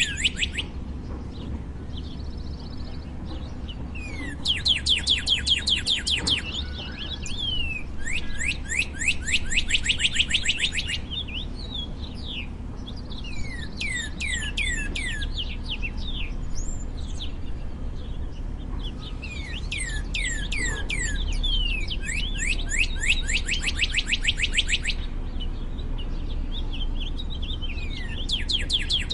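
Northern cardinal singing: phrases of rapid, falling whistled notes, each lasting one to three seconds, repeat several times with short pauses between. A steady low background rumble runs beneath.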